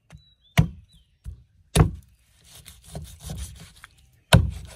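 Cleaver chopping cow's foot on a thick wooden chopping board: three sharp chops, the loudest near the end, with the blade sawing and scraping through skin and gristle between them.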